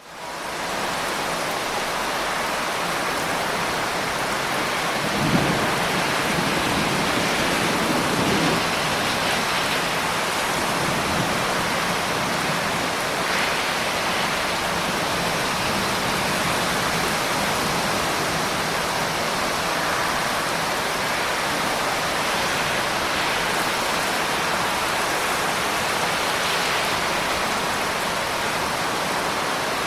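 Steady heavy rain, with two low rolls of thunder rumbling through it about five and eight seconds in.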